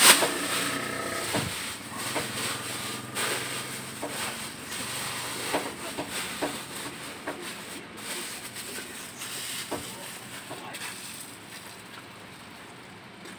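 Wind-driven lake waves lapping and splashing against a stone seawall, with irregular sharp slaps over a steady rush of wind and water. A voice is heard briefly at the start.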